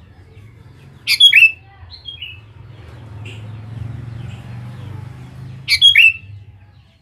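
Sooty-headed bulbul calling: two loud, short bursts of quickly falling notes about four and a half seconds apart, with a softer note between them, over a low background hum.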